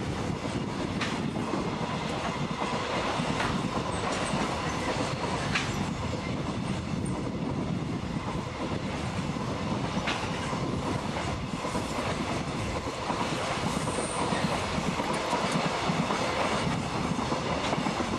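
Container wagons of a freight train rolling past: steady wheel-on-rail noise with a clickety-clack over the rail joints and a few sharp clicks.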